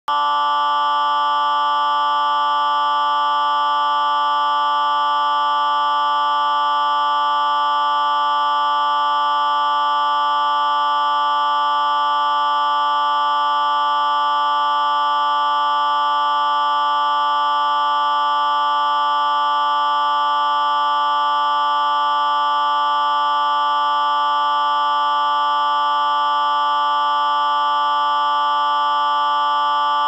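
Colour-bars test tone sound effect in a major-chord version: several electronic tones held together as one steady, unchanging chord.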